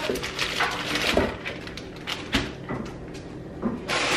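Kitchen handling sounds: a series of separate knocks and clatters, about half a dozen, as ingredients and containers are handled at a blender, with the loudest knock near the end.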